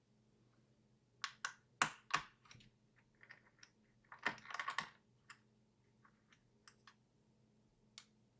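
Scattered small clicks and taps of a screwdriver working the captive screws in a laptop's plastic bottom panel, with a quick run of clicks about four seconds in and sparse light ticks after.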